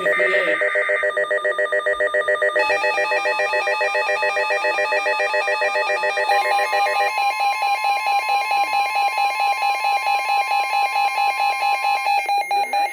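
Weather radio alert alarm sounding for an incoming severe thunderstorm warning: rapid electronic beeping in several tones that shifts pattern a few times.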